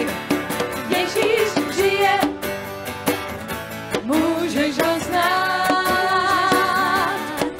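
A live Christian worship song: a voice singing over band accompaniment, holding one long note with vibrato from about five seconds in.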